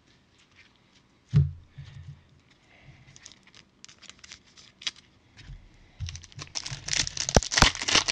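A single thump about a second and a half in, then a foil Panini Mosaic basketball card pack being torn open and crinkled, the crinkling growing dense and loud over the last two seconds.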